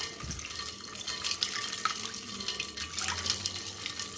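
A milk, Rooh Afza and ice mixture being stirred in a bowl with a spatula: liquid sloshing, with many small clicks of ice cubes knocking together and against the bowl.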